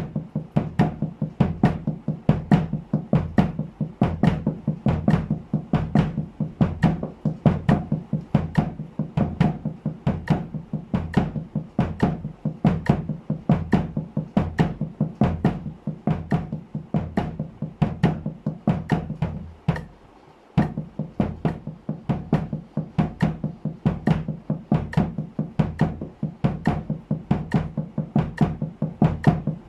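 Drum practice at a steady 70 bpm: double strokes with wooden sticks on a snare drum with a cloth over its head, with kick drum strokes on the last two sixteenth notes of each beat. The playing stops for about half a second roughly two-thirds of the way through, then resumes.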